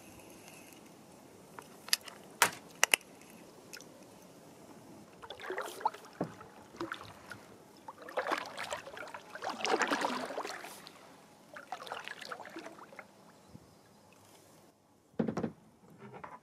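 Kayak paddle strokes: water swishing and dripping off the paddle blade in several surges. A few sharp knocks come about two to three seconds in, and one more loud knock comes near the end.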